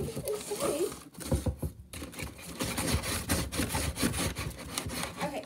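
Cardboard box being handled up close: rapid clicks, knocks and scraping of cardboard against cardboard.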